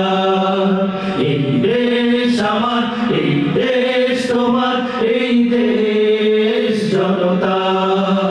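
Men's vocal group singing an Islamic gazal together into microphones, long held notes in harmony that change every second or two.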